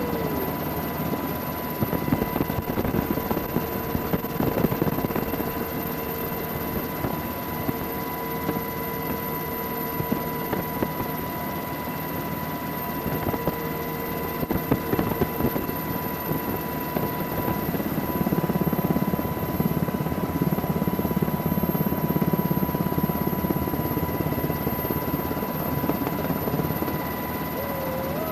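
Helicopter running steadily: a dense rotor and engine drone with a thin, steady whine above it, growing slightly louder in the second half.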